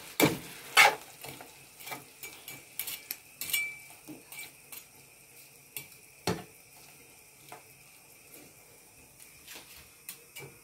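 Spatula scraping and knocking against a frying pan as chicken fillet strips and tomato are stirred, in irregular strokes, busiest in the first few seconds with one sharp knock about six seconds in, over a faint sizzle of frying.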